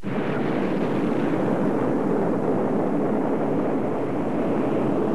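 Steady rushing roar of ICBM rocket motors lifting off from their silos, starting suddenly.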